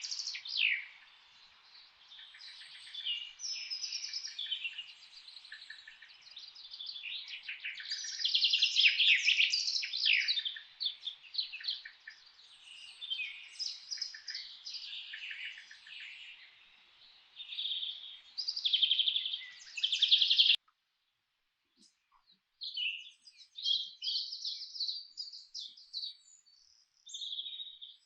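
Several songbirds chirping and singing over one another in quick, high calls and trills, over a faint background hiss. About two-thirds of the way through, everything cuts off abruptly for about two seconds, then the birdsong starts again without the hiss.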